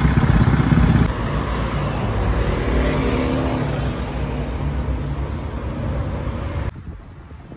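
Street traffic: motor vehicle engines running close by, loudest at first, with a sudden change about a second in and a sharp drop to a much quieter street near the end.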